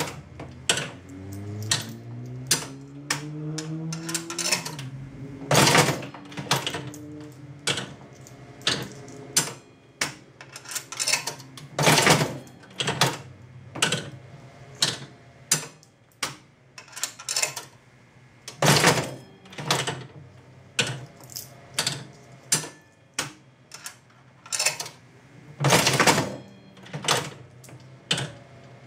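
Jennings Sun Chief five-cent slot machine being played, its handle pulled over and over. A loud mechanical clunk comes about every seven seconds, with lighter clicks and clacks of the reel mechanism between. A rising whirr sounds in the first few seconds.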